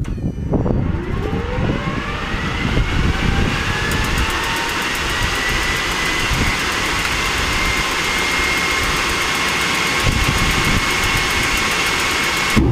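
Fairchild J44 turbojet being spun up for a start before light-off: a whine that rises in pitch over the first few seconds, then holds steady as the rotor reaches cranking speed. A fast, even ticking joins about four seconds in.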